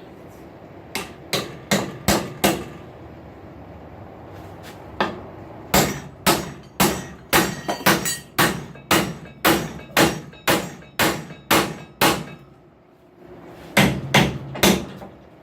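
Hammer blows driving a hand-forged steel drive hook into a wooden post through a pilot hole, each blow a sharp metallic strike with a short ring. They come in three groups: a handful of blows, a steady run of about fifteen at two to three a second, then a last quick few near the end.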